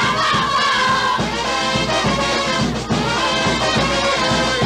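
Carnival tonada music: a brass section of trumpets and trombones playing over a steady beat.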